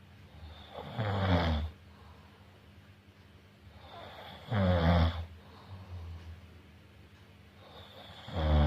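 A person snoring: three loud snores about three and a half seconds apart, with fainter breaths between them.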